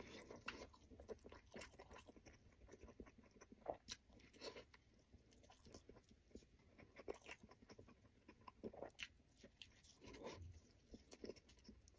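Faint, close-up chewing and mouth sounds of a person eating, with scattered small clicks and soft smacks.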